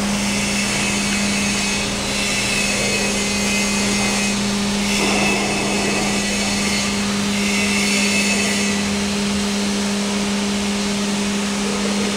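Steady machinery noise: a constant low hum under an even hiss, with a higher hiss that swells and fades several times in stretches of a second or so.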